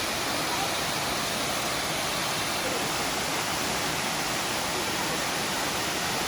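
Waterfall water rushing and splashing in a steady, unbroken rush.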